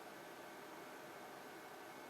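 Near silence: a faint, steady hiss of room tone with a faint high whine.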